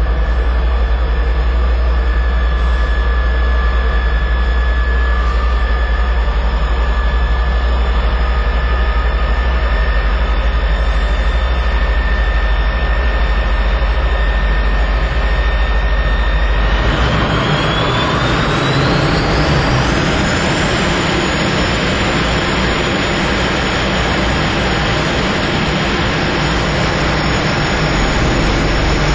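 Jet aircraft engine running steadily, then, a little over halfway through, spooling up: a whine rises in pitch over a few seconds and settles at a higher steady note over a louder rushing noise, as when power is increased.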